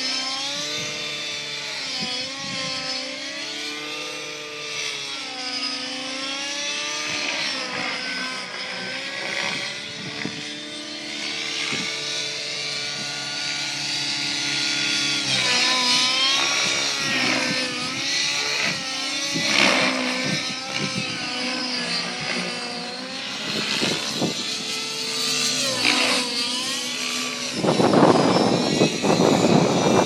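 700-size radio-controlled nitro helicopter flying aerobatics, its engine and rotor whine rising and falling in pitch through the flips and turns. Near the end a loud rushing noise joins it.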